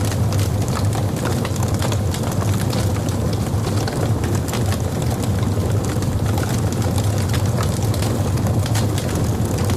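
Logs burning in a fireplace: a dense scatter of small crackles and pops over a steady low rumble.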